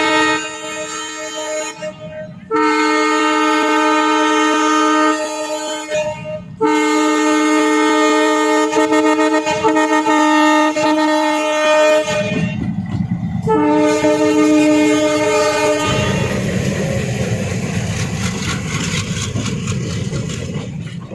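Train horn sounding in long, steady blasts with short gaps between them. After the last blast, a little over two-thirds of the way through, the steady rumble of the train running on the rails takes over.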